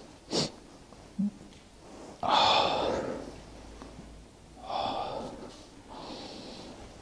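A person breathing heavily close to the microphone: a short sniff near the start, then two long breathy exhales, and a fainter one near the end.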